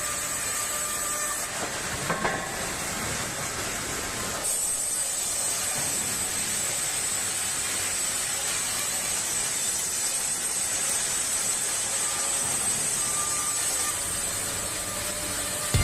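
Artiglio ST130 band sawmill running with its thin blade cutting through a log, a steady hiss. The high end is weaker for a few seconds early on, then holds steady.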